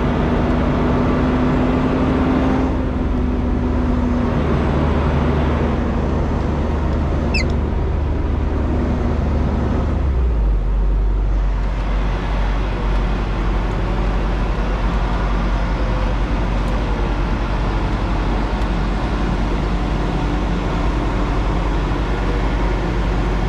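Semi truck's diesel engine running at low speed while the rig reverses toward a loading dock. Its steady hum drops to a lower note about ten seconds in.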